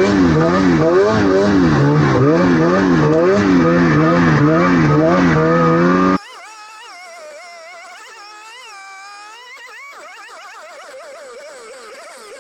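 Snowmobile engine revving up and down as the sled is ridden, loud and close for about six seconds. After an abrupt cut, engine revving of the same kind goes on, much quieter.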